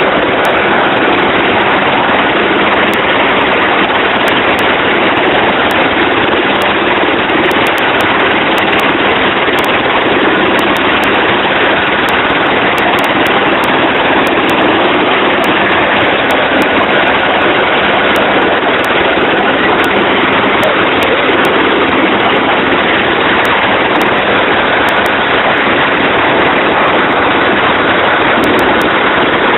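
Helicopter engine and rotor running, a loud steady noise with a faint low hum.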